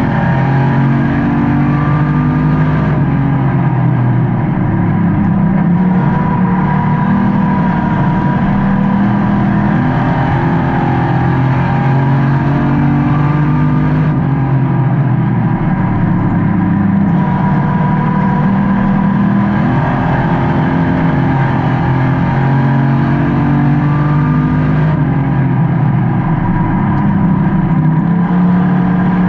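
Race car engine heard from inside the car during a race. It revs up and eases off again several times as the car laps the oval.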